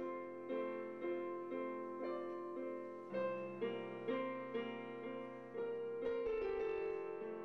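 Piano playing a slow piece: a melody over held chords, with a new note struck about every half second.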